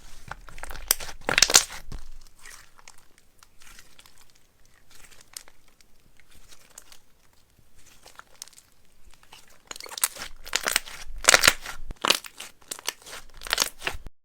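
Clay slime being squeezed and mixed by hand, giving crackly, crinkling squishes in bursts. They are loudest about one to two seconds in and again over the last four seconds, with softer crackles in between.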